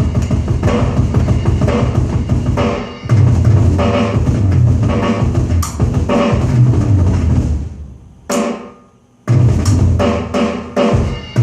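Roland electronic drum kit being played: a busy beat of bass drum and snare hits that fades out about eight seconds in, one bright crash-like hit, a short pause, then the playing starts again.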